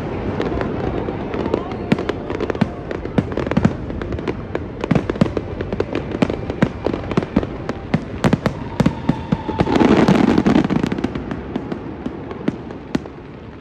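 Fireworks display: a rapid stream of sharp cracks and bangs, with a denser, louder burst about ten seconds in, tailing off near the end.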